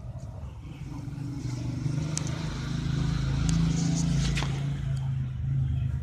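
A motor vehicle's engine passing by, growing louder to a peak a little past the middle and then fading. A couple of light clicks sound over it.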